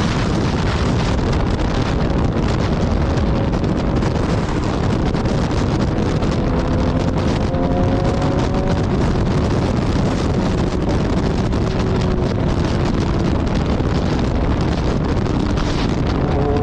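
Strong wind buffeting the microphone in a steady, loud rumble, with faint wavering whistling tones now and then.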